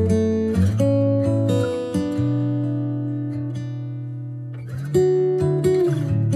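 Background music of strummed acoustic guitar chords that ring out and slowly fade, with a fresh run of strums about five seconds in.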